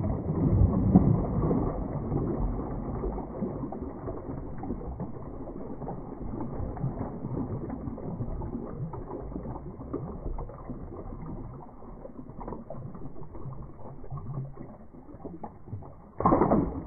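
Water splashing and sloshing around a large peacock bass held down in shallow river water. The sound is dull and muffled, with nothing high in it. It is loudest in the first couple of seconds, with a short louder splash near the end.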